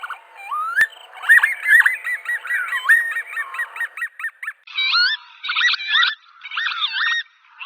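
Northern lapwings calling, a rapid run of overlapping sweeping cries that rise and fall in pitch, then come in separate clusters after a short break. A steady faint hiss runs under the first half and stops about halfway.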